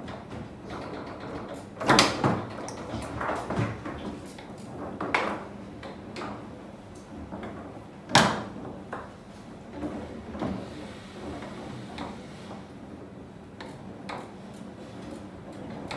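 Foosball table in play: sharp knocks of the ball being struck by the player figures and hitting the table, with the rods sliding and clacking. The two loudest knocks come about two seconds in and about eight seconds in.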